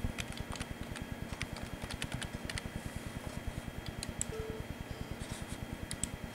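Quick clicks of keys on a computer keyboard as a word is typed, over about the first two and a half seconds, then a mouse click or two near the end. A steady, evenly pulsing low hum runs underneath.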